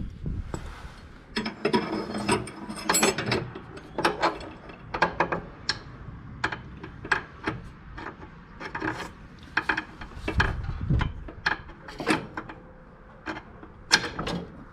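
Metal parts and hand tools clicking and clanking at an irregular pace, as the front lift linkage is fitted to a lawn tractor's mower deck.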